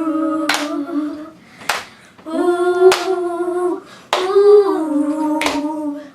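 Female voice singing long held notes unaccompanied, with sharp hand claps keeping time about once every second and a bit.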